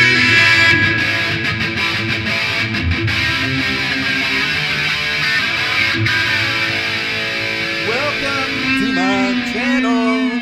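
Electric guitar playing, with a run of repeated rising string bends in the last couple of seconds.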